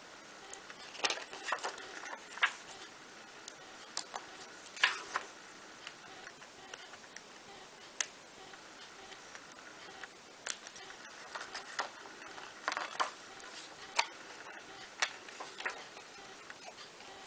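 Small parchment-craft scissors snipping through perforated parchment paper: irregular sharp little clicks as the blades close, some alone and some in quick clusters.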